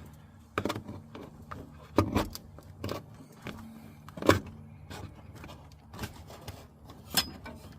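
Shifter cable and its rubber floor grommet being handled and pulled through the floor of a 2008 Chevy Express: irregular knocks and rattles, the loudest about four seconds in, over a faint steady hum.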